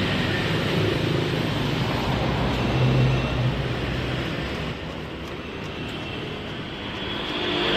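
Road traffic noise: vehicle engines running and passing, a steady low hum under a wash of road noise that eases off about two-thirds of the way through and swells again near the end.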